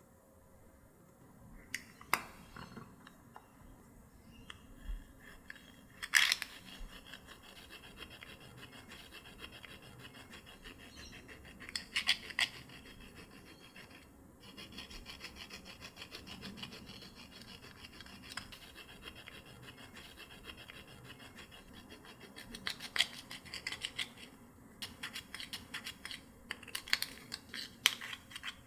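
Slime being worked and mixed by hand, a sticky crackling and rubbing with several sharp clicks along the way.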